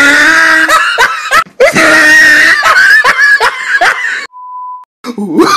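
Edited-in comic voice sound effects, loud laughing and screaming with rising pitch, then a brief steady beep tone about four seconds in that cuts off suddenly.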